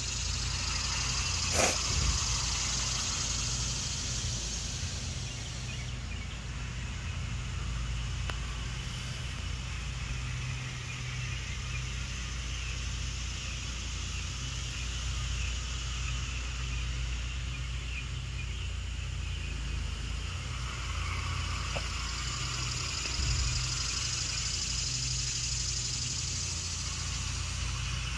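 An engine running steadily throughout. About one and a half seconds in there is a single sharp click, and a high hiss fades out around six seconds in and comes back for the last few seconds.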